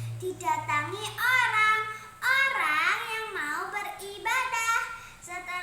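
A child's high voice singing, in drawn-out phrases with gliding pitch.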